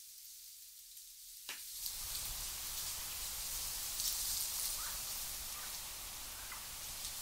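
Wind rustling through dry hillside grass, with a low wind rumble underneath. It starts thin and swells after a brief falling whoosh about a second and a half in. A few faint short chirps come later.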